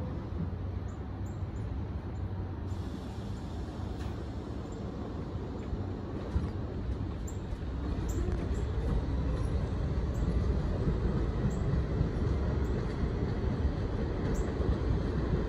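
A 1973 St. Louis-built R44 subway-car train pulling out and accelerating away: a steady low rumble of wheels on rail, with the traction motors' whine rising in pitch about six seconds in, and the rumble growing louder after that.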